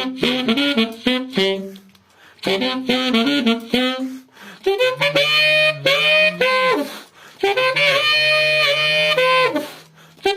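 Saxophone playing a melody in four short phrases, broken by brief gaps at about two, four and a half and seven seconds. It is played with the growl effect, a throaty rasp made by gargling in the throat while blowing.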